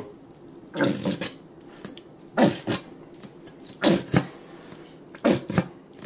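Plastic squeeze bottle of barbecue sauce squeezed upside down, sputtering out sauce and air in four short bursts about a second and a half apart as the nearly empty bottle is emptied.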